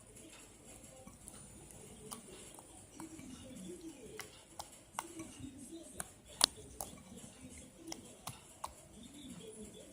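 Irregular light clicks and taps, a dozen or so at uneven spacing, the sharpest about six and a half seconds in.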